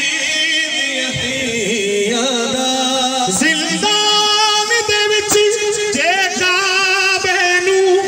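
A man singing a noha, a Shia lament, solo into a microphone. He draws out long held notes with a wavering, ornamented pitch and leaps up to a higher held note about three seconds in.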